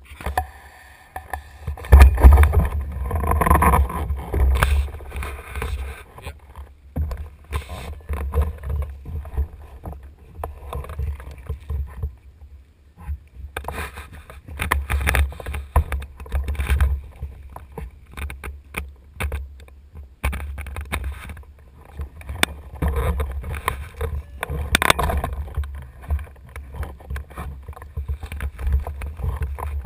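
Gusty wind buffeting the microphone, a low rumble that swells and drops every few seconds.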